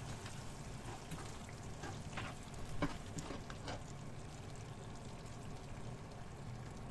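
Chicken pieces frying in masala in a pan while a spoon stirs them, knocking and scraping against the pan a few times in the first half, loudest about three seconds in. A steady low hum runs underneath.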